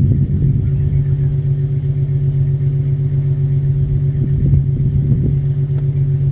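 A motor vehicle's engine idling, a steady low hum, with wind rumbling on the microphone.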